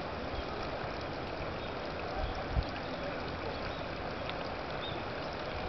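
Steady outdoor background noise, an even rushing hiss, with a brief low thump about two and a half seconds in.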